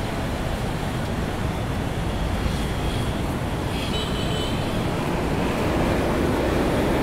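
Steady wash of noise from waves breaking on a sandy beach, heaviest in the low range and swelling slightly near the end.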